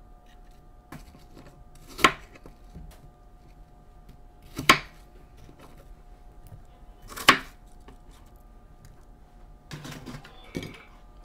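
Kitchen knife cutting apple on a wooden cutting board: three sharp knocks of the blade striking the board, about two and a half seconds apart, then lighter clatter near the end.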